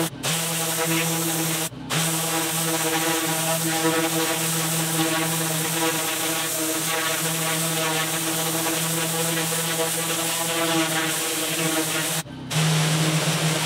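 Pressure washer running steadily: a constant motor-and-pump hum under the hiss of the high-pressure spray blasting weeds from paver joints. The sound breaks off briefly about two seconds in and again about twelve seconds in.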